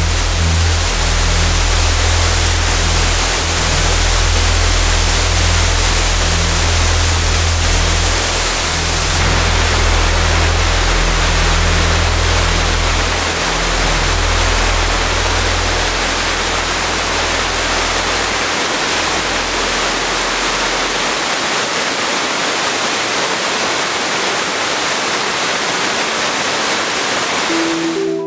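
Waterfall, falling water rushing in a steady, loud, even wash of noise. Underneath, a low held musical drone fades out a little past halfway.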